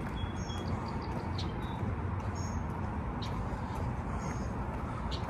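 Steady outdoor background noise, a low rumble like distant traffic or wind on the microphone, with short faint high chirps repeating about every two seconds.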